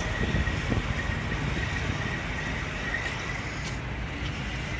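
Steady outdoor rumble and hiss of wind and road traffic, with a faint, steady high tone running through it.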